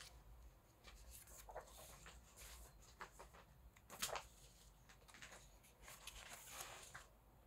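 Faint rustling and flicking of photobook pages being turned by hand, with one sharper page snap about four seconds in.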